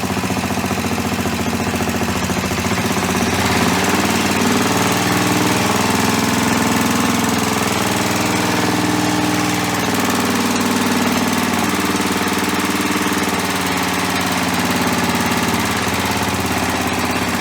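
Freshly rebuilt Clinton C700 small single-cylinder engine running steadily at a fast idle, its speed drifting slightly. The owner says it runs but still has carburetor trouble from corroded jets.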